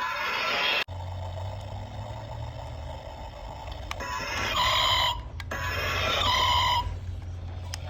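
Remote-control toy car sound effects: a steady low electronic hum starting about a second in, with two short bursts of bright ringing tones in the second half.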